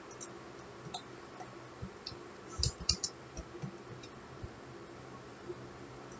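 Scattered computer keyboard and mouse clicks, with a quick cluster of louder clicks about two and a half seconds in, over a faint steady hum.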